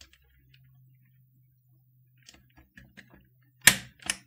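Plastic keycaps being pressed and snapped onto the keyswitch stems of a Canon TypeStar 4 keyboard: a scatter of small plastic clicks, then two loud snaps close together near the end.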